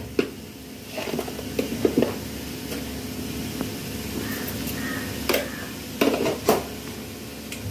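Scattered light clinks and knocks of kitchen utensils and cookware: a cluster in the first two seconds and a few sharper knocks about five and six seconds in, over a low steady hum.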